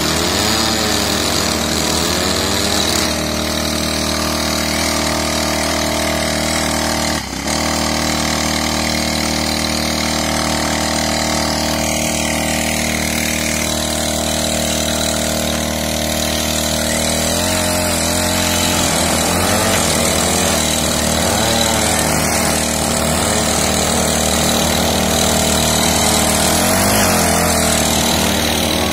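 Backpack-mounted 43 cc four-stroke engine of a flexible-shaft mini tiller running steadily at working speed while the tiller head digs soil. Its pitch wobbles up and down in the second half.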